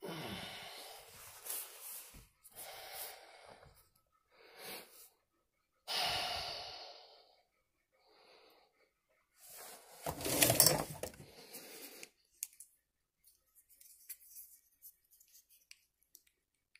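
A person breathing heavily close to the microphone: a string of noisy, wheezy breaths of a second or two each, the loudest about ten seconds in, then only faint small ticks.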